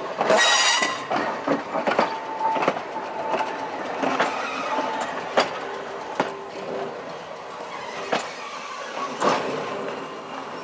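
North Shore Line interurban car 715 rolling past on steel wheels and moving away. It rushes loudest in the first second. Its wheels then click over rail joints and a switch at uneven intervals, over a steady rumble.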